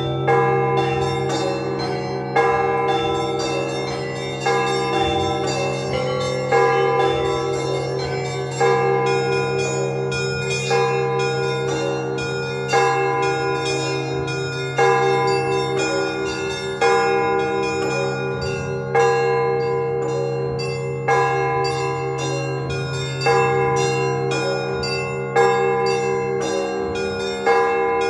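Orthodox church bells ringing to call the faithful to the Sunday service. A heavy bell is struck about every two seconds over a fast, steady ringing of smaller bells, each stroke left ringing on.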